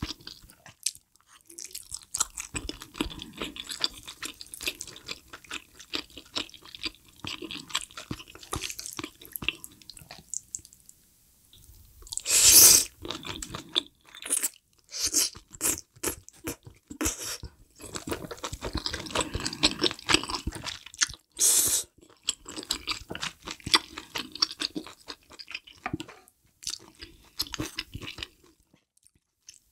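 Close-up chewing and crunching of spicy hot pot food, napa cabbage and meat, with wet mouth sounds in quick irregular clicks. There are two louder bursts, about 12 and 21 seconds in.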